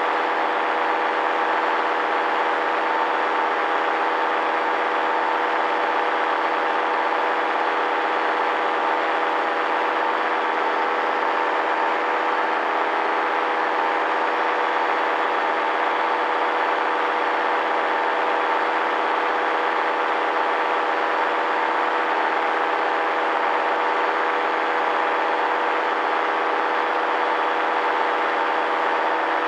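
Paramotor engine and propeller running steadily in flight, one unchanging engine note with no change in speed.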